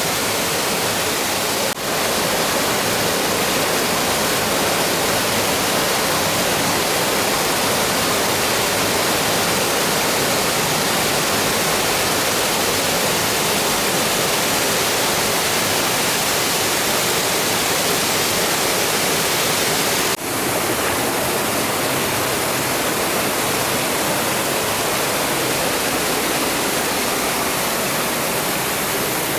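Benten Falls, a waterfall, giving a steady loud rush of falling water, with two very brief dips in the sound, one about two seconds in and one about twenty seconds in.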